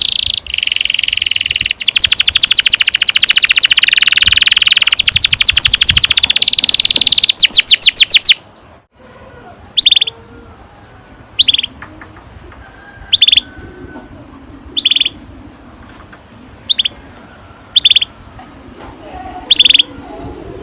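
Domestic canary singing a long, fast rolling trill for about eight seconds that slows into a few separate notes at its end. After a short pause it gives single short chirps every second or two.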